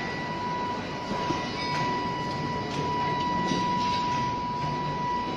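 Steady industrial din of a steel foundry floor during a pour of molten steel, with a constant high-pitched whine running through it and a few faint clanks.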